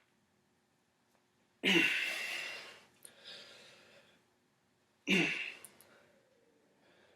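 A man's forceful exhalations while straining to bend a grade 2 bolt by hand: two sharp, breathy blows about three and a half seconds apart, each trailing off, with a weaker breath between them.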